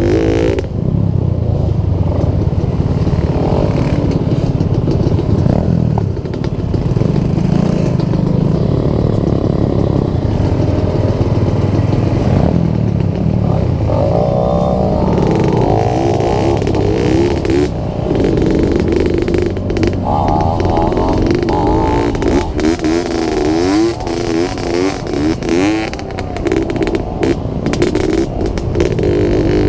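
Yamaha RS100 two-stroke single-cylinder motorcycle engine running under load on a dirt trail, its pitch rising and falling as the throttle is opened and closed. The bike clatters over bumps, most of all near the end.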